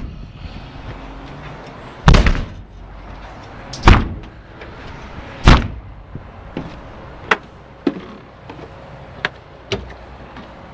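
Footsteps climbing down off the rescue truck's aluminium diamond-plate roof and steps: three loud metallic knocks about a second and a half to two seconds apart, followed by lighter knocks and clicks.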